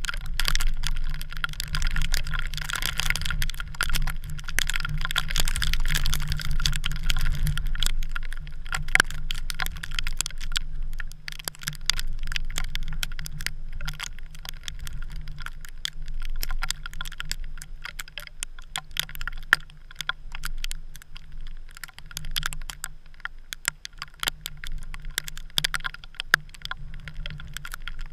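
Wind and driving snow on the camera: a steady low rumble with dense, irregular ticking and crackling, heaviest in the first several seconds.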